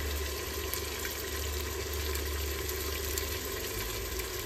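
Steady sizzle of marinated mutton and onions frying in a pressure cooker, with a low steady hum underneath.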